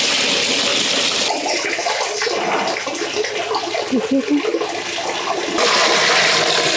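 Water pouring or running in a steady rush, easing off about a second in and coming back stronger a little past halfway.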